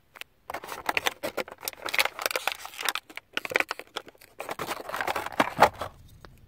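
Small plastic toy pieces and packaging being handled: a dense, irregular run of crinkles and clicks, with a short pause about three seconds in.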